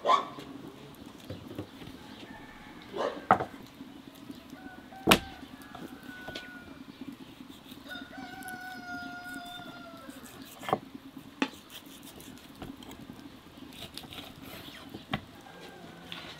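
A rooster crowing twice, a fainter call about four seconds in and a clearer one about eight seconds in, held for about two seconds. A few sharp knocks of the knife and plate on a wooden chopping board come and go, the loudest about five seconds in.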